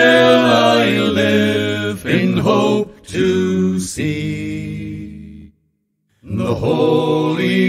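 Low male voices singing a slow song in long held notes, with a short break between phrases about five and a half seconds in.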